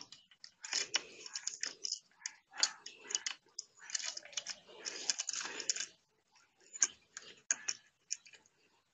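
Metal saw chain clicking and clinking in irregular rattles as its links are handled and fitted by hand around the drive sprocket and guide bar. The rattles are dense through the first six seconds or so and come as scattered single clicks after that.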